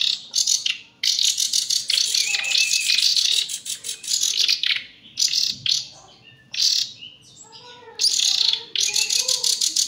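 Nightingale chicks giving harsh, rapid-fire begging calls in repeated bursts, begging for food as they are hand-fed. One long burst of about three seconds comes near the start, with a short lull about halfway through.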